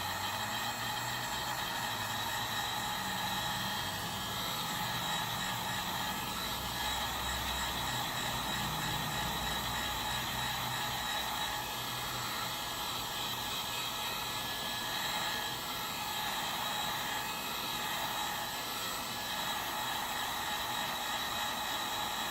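Heat gun running steadily, an even rush of air with a faint steady whine, heating a phone's screen to loosen it for removal.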